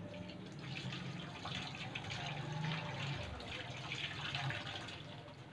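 Sinigang broth with a salmon head boiling in a pot: a steady fizz of many small bubbles, with a low hum underneath.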